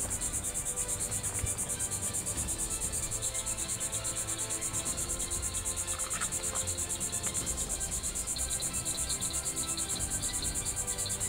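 Insects chirping in fast, even pulses, a steady high-pitched night-insect chorus, with faint music underneath.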